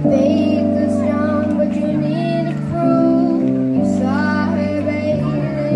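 A boy singing into a microphone over recorded accompaniment of long held chords.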